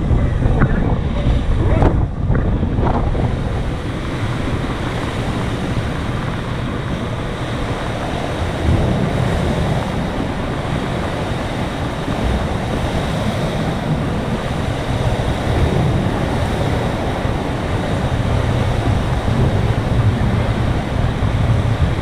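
Strong storm wind on an open ship's deck buffeting the microphone in a steady, heavy rush, with pool water sloshing in choppy waves from the ship's motion in rough seas.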